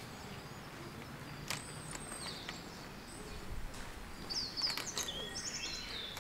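Wild birds chirping and calling, with a busy flurry of calls about four to five seconds in, over a steady outdoor hiss. A few sharp light clicks sound in between.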